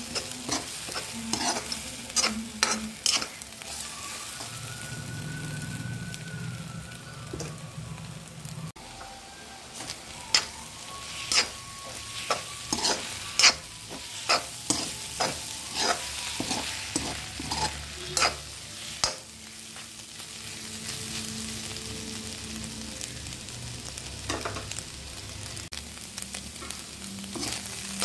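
Egg and onions frying in a pan with a steady sizzle, while a metal spatula clacks and scrapes against the pan, chopping and stirring the egg into crumbles. The spatula strikes come in bursts, thickest in the middle stretch, with spells of sizzling alone between them.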